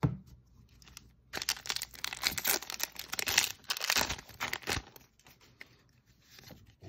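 Shiny foil Magic: The Gathering booster pack wrapper being torn open by hand: a short tap at the start, then a dense crinkling, tearing crackle lasting about three and a half seconds, which fades to light rustling.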